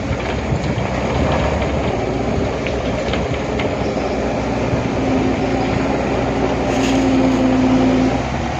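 Steady mechanical rumble, with a hum holding one pitch from about five to eight seconds in.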